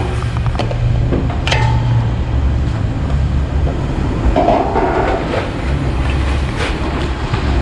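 Metal spatula scraping and clinking against a large aluminium wok while stirring coconut cream and fermented soybean paste, with a few sharp clinks, one ringing briefly. Under it runs a steady low rumble.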